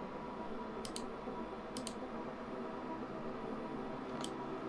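Computer mouse buttons clicking a few times, sharp and separate, with two of the clicks in a quick pair, over a quiet steady background hum.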